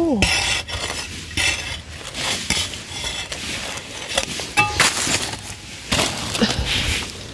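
A narrow metal spade jabbing and scraping into dry, gritty soil, with repeated irregular strokes as grit and small stones clink against the steel blade.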